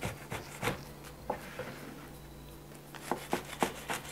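A kitchen knife cutting through a crisp quesadilla and knocking down onto a wooden board. There is a series of short, sharp knocks and crunches, several in the first second and a half, then another cluster near the end.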